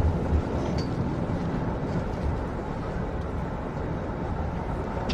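Steady low rumble of a moving train heard from inside the carriage, with a couple of soft low thumps right at the start.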